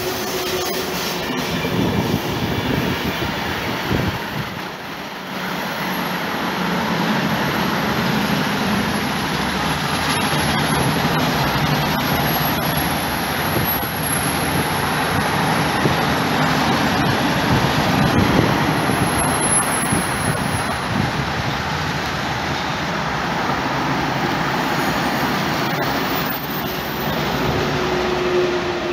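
A long electric freight train passing close by, hauled and pushed by ÖBB Taurus electric locomotives: a steady rumble and clatter of steel wheels on the rails from the rolling wagons. A thin high wheel squeal runs through it, and a steady electric hum is heard from the locomotives near the start and again near the end.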